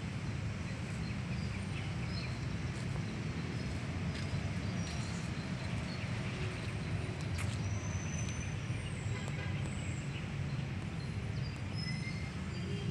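Steady low outdoor rumble, with a few faint high bird chirps here and there.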